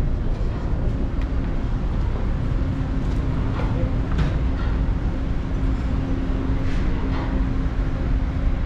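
TTC Line 2 subway train noise: a steady low rumble with a constant hum, and a few faint brief higher sounds over it.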